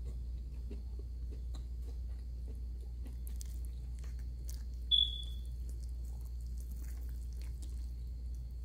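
Eating sounds of chewing and faint clicks as fingers tear apart a boneless bangus (milkfish), over a steady low hum. About five seconds in, a single short high-pitched beep.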